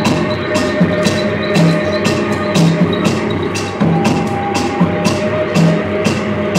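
Live band music with a psychedelic, world-music flavour: a steady beat of percussion hits, about three a second, under a low note repeating about once a second, with sustained melodic tones held over the top.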